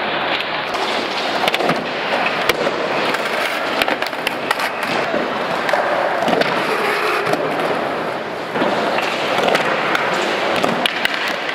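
Skateboard wheels rolling on a concrete floor, with many sharp clacks of boards slapping down and knocking against the ramp.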